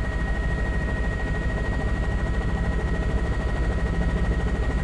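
Helicopter in flight: the rotor blades make a rapid, even chop, over a steady high whine.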